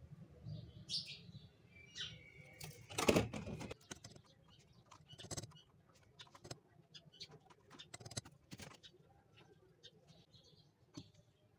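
Faint bird chirps, a louder rustle about three seconds in, and several sharp clicks of side cutters snipping thin aluminium wire into short pieces.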